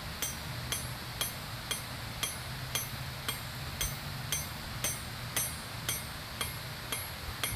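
Hand hammer striking a hot horseshoe nail on a railroad-track anvil to flatten its head: light, even blows about two a second, each with a bright metallic ring.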